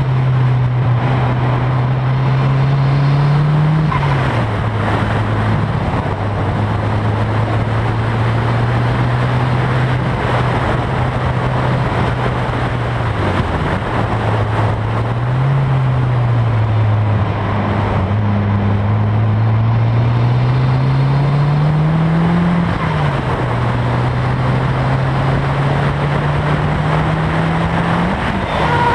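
Nissan S13 Silvia's turbocharged SR20DET four-cylinder engine under way. The revs climb and then drop sharply several times, over steady wind and road noise.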